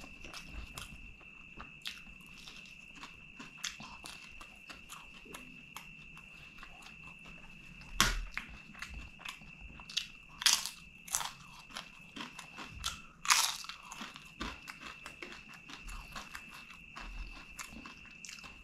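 Close-miked eating: fingers squishing rice and curry and soft wet chewing, then from about eight seconds in a handful of loud, sharp crunches as crisp fried papadam is bitten and chewed. A faint steady high whine runs underneath.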